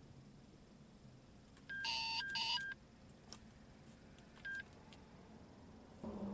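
Stalker Ka-band traffic radar beeping as it is quick-triggered for a brief speed capture: a short beep, then a louder two-part electronic tone, and another single short beep a couple of seconds later.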